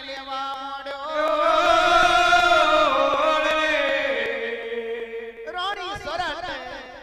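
A voice chanting a long held devotional note. The pitch steps up about a second in, slides down midway, and breaks into a fast wavering ornament near the end before fading.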